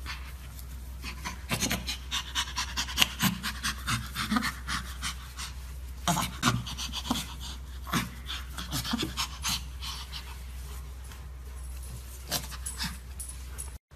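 Young chimpanzee's breathy play-panting laughter, in quick irregular bursts, as it is tickled, over a steady low hum. It cuts off suddenly near the end.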